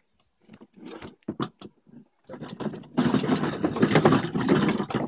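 Hard plastic wheels of a toddler's push-along ride-on toy car rattling over concrete paving slabs, starting a little over two seconds in after a few light knocks and getting louder as it rolls.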